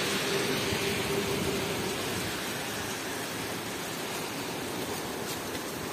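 Heavy rain falling on a wet street and parked cars: a steady hiss that eases slightly in level.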